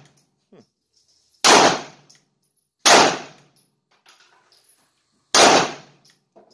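Three sharp, loud bangs, about a second and a half in, three seconds in and five and a half seconds in, each with a short ringing tail, and a few faint clicks between them.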